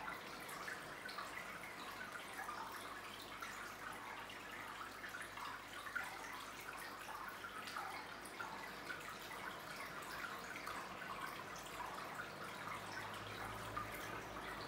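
Aquarium filter water trickling steadily into the tank, with many small splashes. A faint low hum grows stronger near the end.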